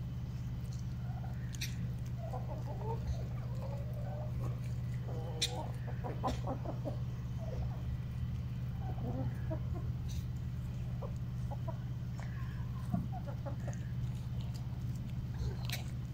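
A flock of laying hens clucking softly on and off as they forage, with a few sharp clicks. A steady low hum runs underneath.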